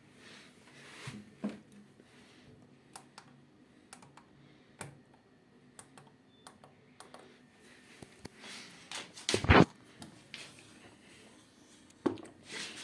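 Ariston washing machine running a wash cycle: a faint steady hum with scattered clicks and knocks as the drum turns, and a louder swish about nine seconds in.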